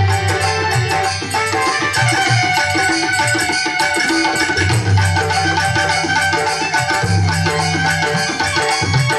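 Instrumental interlude of a Marwari devotional song (bhajan): a hand-drum rhythm under a sustained melody line.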